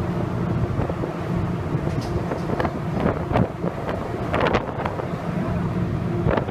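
Steady low drone of a ferry's engines, with wind rushing over the microphone and a few brief louder bursts about three and four and a half seconds in.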